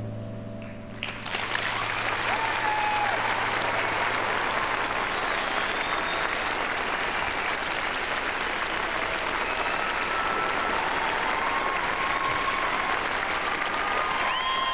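The music ends on a fading held note, then about a second in an arena audience breaks into sustained applause.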